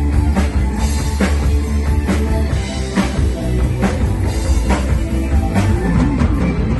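Rock band playing an instrumental section without vocals: drum kit keeping a steady beat under electric guitar and bass.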